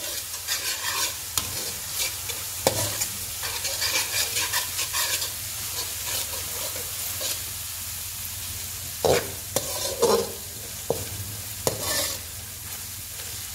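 Onions, ginger-garlic paste and whole spices sizzling in oil in a stainless steel karahi, stirred with a steel slotted spoon that scrapes against the pan, with several sharper scrapes in the second half. This is the masala being fried until its aroma comes up.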